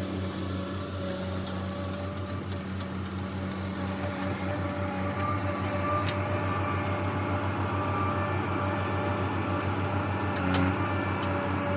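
Diesel engine running steadily, a low even drone that grows slightly louder about halfway through, with one sharp knock about ten and a half seconds in.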